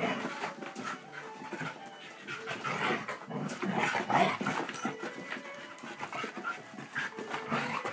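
Two Siberian huskies wrestling in play: heavy panting and short dog noises with scuffling, in irregular bursts that are loudest about halfway through.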